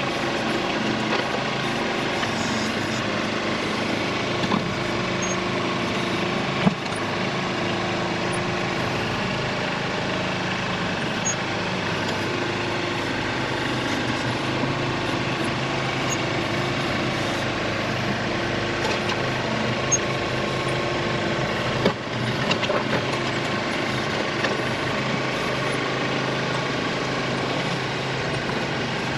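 Engine running steadily at a constant speed, with a couple of sharp clanks on top.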